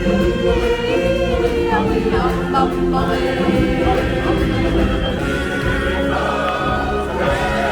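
A choir singing over instrumental music, several voices holding long notes together.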